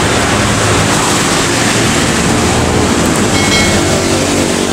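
Steady loud noise, a low engine-like hum under a wind-like hiss, with a short high-pitched tone about three and a half seconds in.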